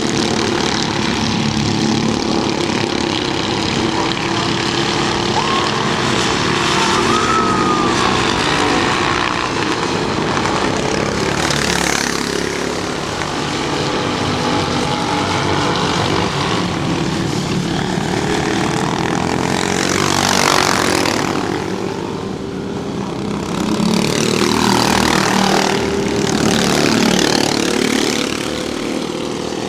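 Several 13 hp racing kart engines running hard together on the track, a steady pack sound with louder swells as karts pass close by about 12, 20 and 25 seconds in.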